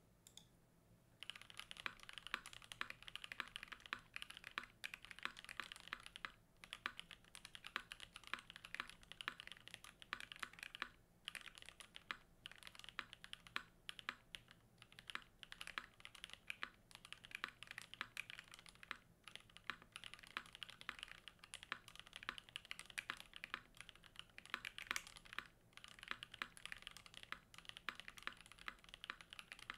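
Typing on a 4398 custom mechanical keyboard with a polycarbonate plate, plate foam, GMK Gregory keycaps and 43studio OpBlack V3 switches: a fast, steady stream of keystrokes that starts about a second in, with a few brief pauses.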